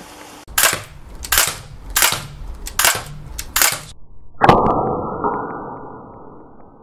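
Five sharp gunshot cracks, evenly spaced about three-quarters of a second apart, then a heavier boom that fades away over about two seconds.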